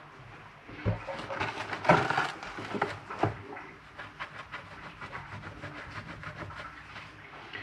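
Kitchen items being handled on a worktop: a few knocks and clatters in the first few seconds, then a run of quick, evenly spaced light clicks for about three seconds.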